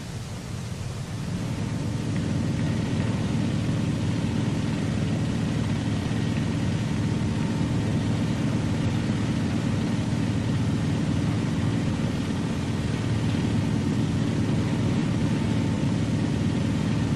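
Steady jet aircraft engine rumble with a hissing wash above it, swelling in about a second in and then holding level.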